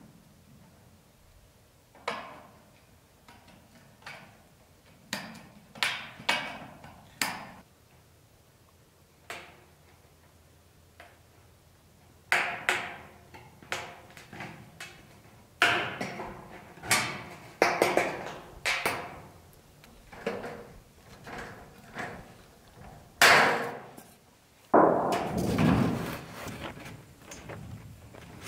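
Hand tin snips cutting a notch in painted sheet steel: irregular sharp metallic snips, coming more often in the second half. A louder rustling clatter follows near the end.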